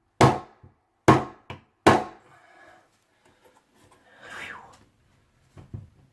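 Three sharp hammer taps, a little under a second apart, on a stuck replacement faucet valve to drive it the last bit down into the faucet body. Then fainter handling: a brief rubbing sound and a few light clicks.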